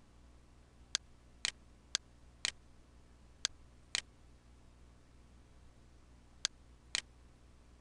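Computer mouse clicks: eight sharp clicks in four pairs, each pair about half a second apart, over a faint steady hum.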